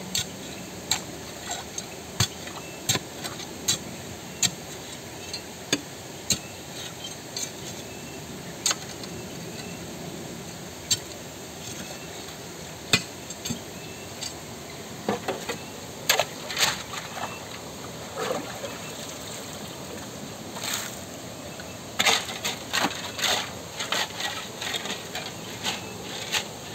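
A shovel digging in a shallow muddy pool, striking stones and gravel in sharp, irregular clinks and knocks that come in quick clusters at times. A steady hiss of running water lies under it.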